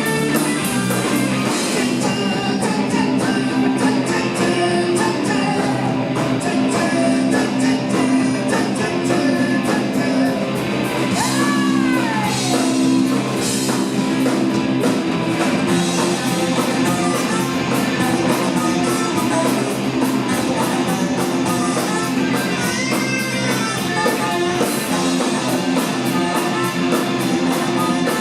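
Live punk rock band playing loud and fast: electric guitars, bass and drum kit, with a falling slide in pitch about eleven seconds in.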